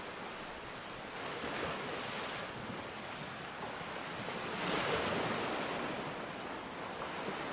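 Sea waves washing onto the shore, swelling twice, the second the loudest, over a steady hiss of rain.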